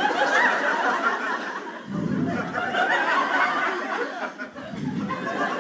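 Comedy-club audience laughing at a punchline, the laughter rising and falling in waves.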